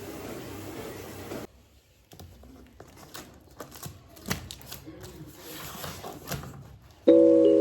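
Steady background hum that cuts off after about a second and a half, followed by faint scattered clicks and rustles of small objects being handled. Near the end, bell-like music notes come in loud.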